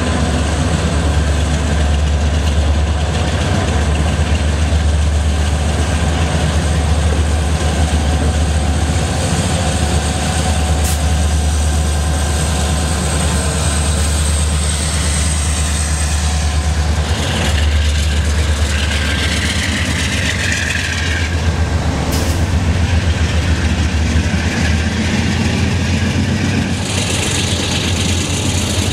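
Norfolk Southern diesel freight locomotives passing at low speed, a steady deep engine drone with the freight cars rolling behind them.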